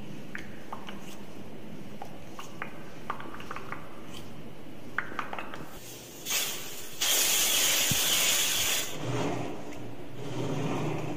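A few faint clicks, then an aerosol spray can sprayed close to the microphone: a short puff about six seconds in, followed by a steady hiss lasting about two seconds. Muffled rustling of hands near the microphone follows.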